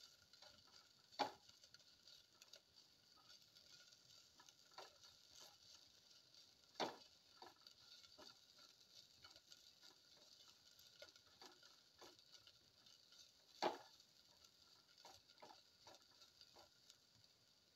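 Faint scraping and tapping of a spatula stirring chopped shallots, ginger and garlic in a steel pot, with three sharper knocks against the pot spread through.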